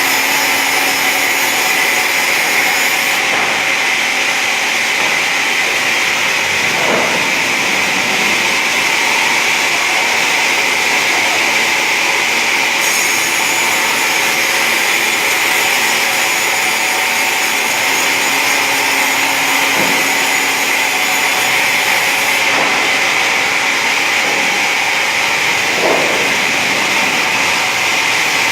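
Automatic wood-sawing machine running, a loud steady whir with a few brief dips in pitch.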